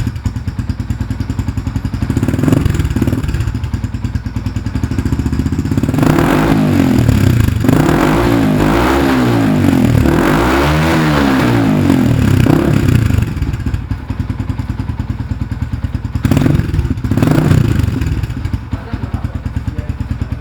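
Yamaha Jupiter MX King 150's single-cylinder four-stroke engine breathing through an R9 Assen aftermarket racing exhaust. It idles, is blipped once, is revved up and down several times in a long run midway, and is given two more quick blips before settling back to idle.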